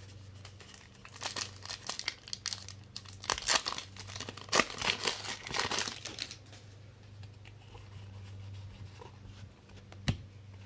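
Crinkling and tearing of a foil trading-card pack wrapper as the cards are handled, in irregular bursts that are loudest in the first six seconds, then quieter with a low steady hum and a single click near the end.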